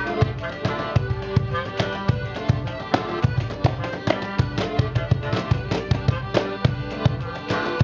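Band playing live: an instrumental passage with a steady, evenly spaced beat under a pitched melody, no singing.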